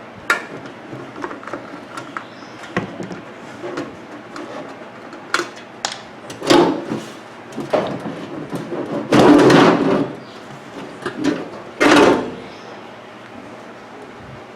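Handling noises from a microwave's outer casing being unscrewed and worked loose: scattered clicks and knocks, with two louder, longer scrapes in the second half.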